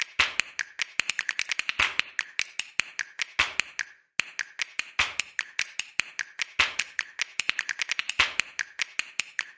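Rapid, uneven sharp clicks and snaps in a pattern that repeats after about four seconds, with a short break about four seconds in: a looped percussive backing track.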